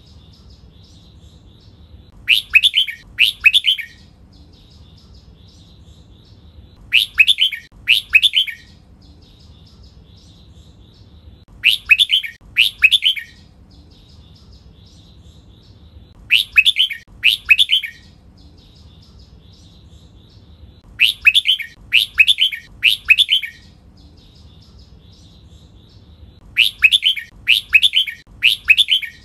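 Red-whiskered bulbul singing its doubled ('เบิ้ล') song phrases, each a quick cluster of two or three loud whistled notes, repeated about every four to five seconds. Faint twittering fills the gaps between phrases.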